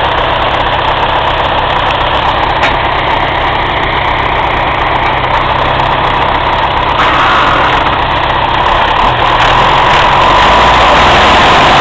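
Tractor diesel engine running, getting louder about seven seconds in and again around ten seconds.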